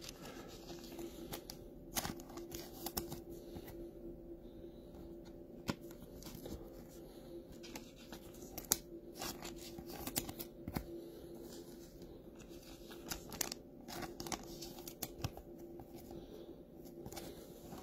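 Trading cards being handled: scattered soft clicks and short rustles as the cards slide and tap against each other in the hands, over a faint steady hum.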